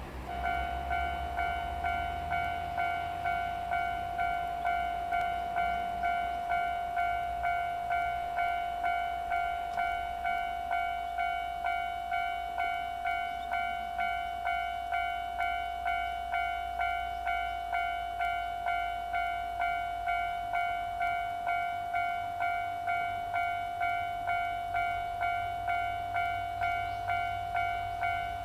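Japanese railway level-crossing warning bell ringing in an even, repeating clang of about one and a half strikes a second: the crossing is signalling an approaching train.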